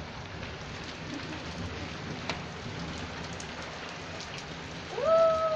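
Steady rain falling on a flat rooftop, an even hiss with scattered drop ticks. Near the end a short call rises in pitch and holds for about a second.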